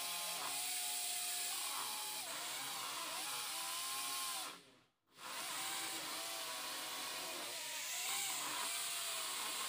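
Small electric motors of a homemade foam-sheet mini quadcopter running with a high whine and buzz, their pitch rising and falling as the throttle changes, while the drone fails to lift off. The sound cuts out briefly about halfway through and then resumes.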